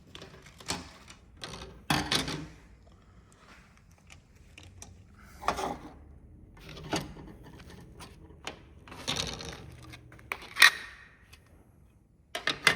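Scattered plastic clicks, taps and knocks as remote-control casings and parts are handled and set down on a table, with a sharper knock about ten and a half seconds in and another near the end.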